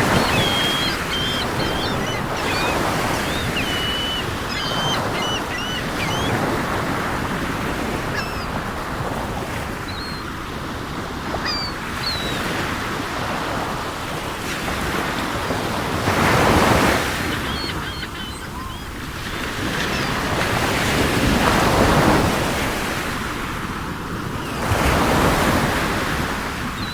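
Lake waves washing onto the shore in slow surges, with wind, and birds chirping now and then over it.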